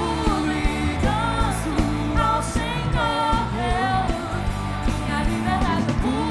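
Gospel worship song: a full band with a steady drum beat, carrying a sung melody that glides and bends between phrases.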